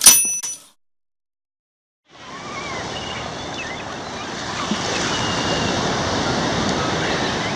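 A bright chime rings out and dies away within a second. After a second of silence, the wash of ocean surf fades in and runs steadily, with a few faint high chirps over it, and starts to fade near the end.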